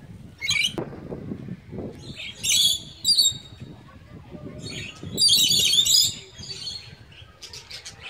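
Small parrots chirping and chattering in high, quick bursts: a short one about half a second in, another around two and a half seconds in, and a longer chatter around five to six seconds in.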